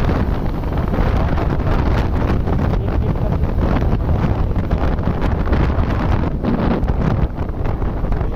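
Wind buffeting the microphone of a camera on a moving motorcycle, a loud steady rumble with the bike's engine and road noise beneath.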